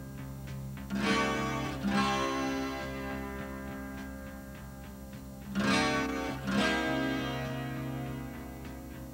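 Background guitar music: chords strummed in two pairs, with softer picked notes ringing between them.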